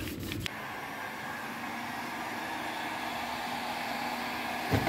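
After a brief cloth scrubbing on the tape at the start, a handheld electric heat gun blows steadily with an even fan hiss, warming contact glue on a PVC boat tube.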